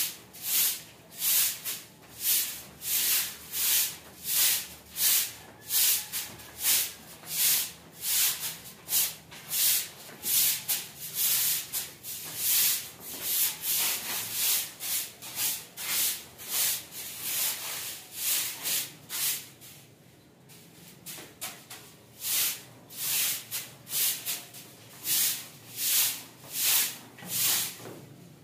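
A short-handled straw broom sweeping a bare concrete floor: a run of brisk, rhythmic swishes, a little more than one stroke a second, with a short lull about two-thirds of the way through.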